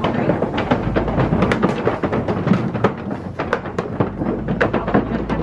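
Safari ride vehicle crossing a bridge, its tyres knocking and rattling over the deck: a quick, irregular run of knocks over a low, steady rumble.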